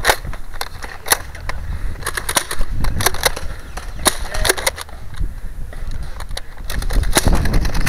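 Nerf foam-dart blasters being primed and fired: a run of irregular sharp clicks and snaps, several a second, over a low rumble.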